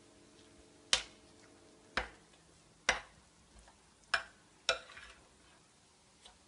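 Spoon knocking against a mixing bowl while stirring a thick hung-curd and gram-flour mixture: five sharp clinks about a second apart, with a faint one near the end.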